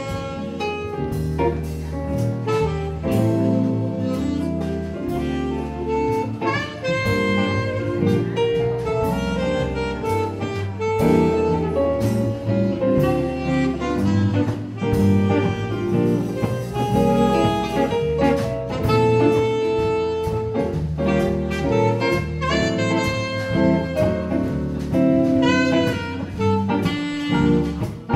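Live jazz combo playing: a saxophone carrying the lead line over double bass, drum kit with steady cymbal strokes, and archtop electric guitar.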